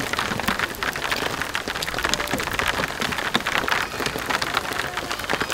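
Heavy rain pouring steadily onto a wet wooden deck, a dense hiss with many close, sharp drop strikes.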